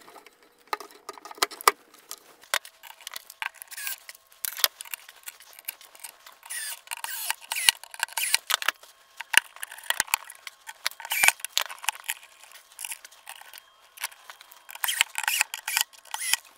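Irregular clicks, rattles and scrapes of a metal Blum Aventos HL lift mechanism being handled and fitted against a plywood cabinet side, in bursts that come and go.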